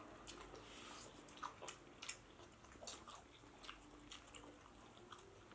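Faint chewing and lip-smacking of a person eating pork biryani with rice, with short wet clicks at irregular intervals.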